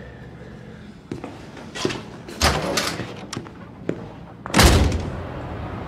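A few light knocks and clicks, then a door shutting with a heavy thud about four and a half seconds in.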